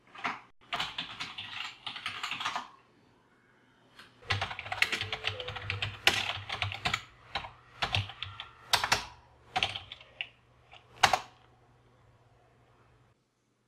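Typing on a desktop computer keyboard: a short run of quick keystrokes, a pause of over a second, then a longer run that thins out into a few separate, sharper keystrokes, the loudest one near the end.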